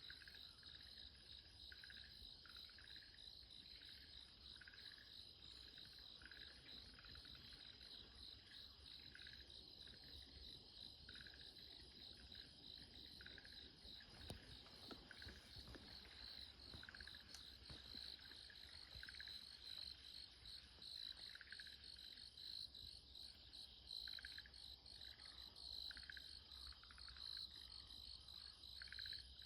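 Faint short trilling calls, 'turuuru', repeating about once a second from woodland over a steady high chorus of crickets and other insects. The trills sound like frogs calling in a spring rice paddy, and the uploader wonders whether they come from a Japanese tree frog.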